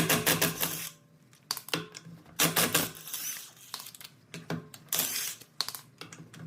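Metal hand tools and sockets clinking and rattling as they are handled, a string of sharp metallic clicks and short rattles.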